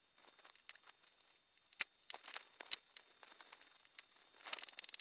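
Faint clicks and short scrapes of small stainless steel hardware being handled and slotted wood screws being turned with a hand screwdriver, with two sharper clicks about two and three seconds in.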